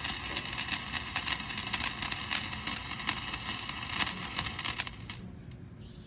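A toy firework burning with a dense crackling over a steady hiss of spraying sparks, cutting off suddenly about five seconds in.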